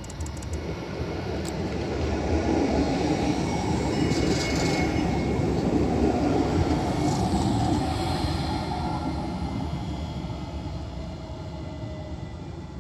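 Alstom Citadis low-floor tram passing close by: its running noise swells, peaks as it goes past midway, then fades, with a faint high squeal from the wheels partway through.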